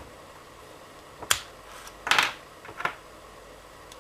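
Plastic T-plug battery connectors knocking and scraping together as a plug is pushed at its mating socket, which will not go in: a sharp click about a second in, a short scrape about two seconds in, and another click soon after. The socket's contact is slit only lengthwise, not crosswise, which is why the plug won't seat.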